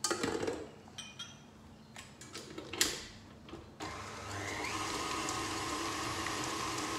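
KitchenAid tilt-head stand mixer: a few knocks and clatters as it is handled, then about four seconds in the motor switches on, rises briefly in pitch and runs steadily, beating creamed butter and sugar.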